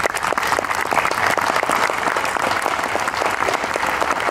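Audience applauding: many hands clapping in a dense, even patter that holds steady throughout.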